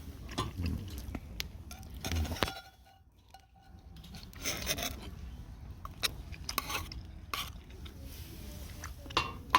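Camp cookware and utensils clinking, rubbing and scraping in short bursts, with scattered sharp clicks.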